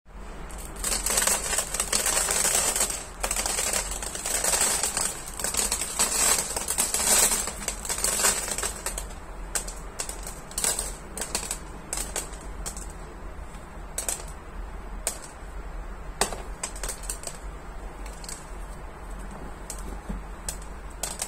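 Small stick-shaped cat litter pellets rattling onto a slotted plastic litter-box grate, a dense crackling patter for the first eight or nine seconds. After that come scattered single clicks as fingers push the pellets across the grate and down through its slots.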